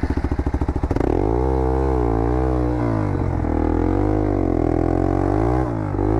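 Off-road motorcycle engine with a fast, even beat for about a second, then revving up and down repeatedly as the bike struggles to climb a steep slope.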